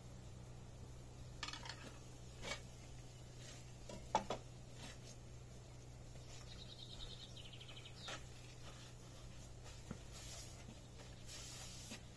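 Sparse clinks and knocks of a frying pan and cookware being handled and set down, the loudest about four seconds in, over a faint steady hum.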